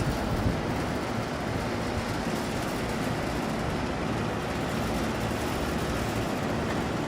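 HVAC unit running: a steady, even rush with a low hum underneath.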